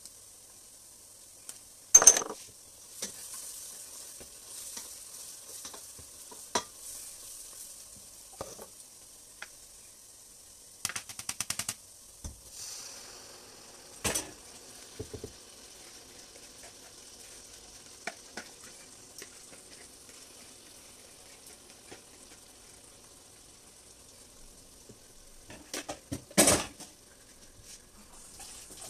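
Palm oil stew base sizzling in a stainless-steel pot, the hiss swelling briefly as blended tomato goes in around the middle. Sharp knocks of a metal spoon against the pot and bowl break in, the loudest about two seconds in and again near the end, with a quick run of clicks shortly before the pour.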